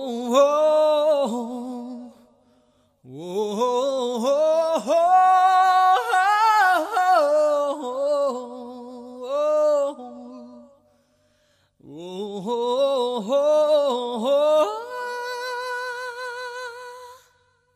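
A single voice singing unaccompanied in three long melodic phrases with wavering pitch, the last ending on a long held note.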